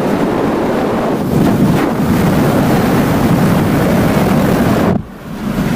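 Heavy wind buffeting on a Yi 4K action camera's microphone held out of a car window at highway speed: a dense, steady rush. It drops sharply about five seconds in.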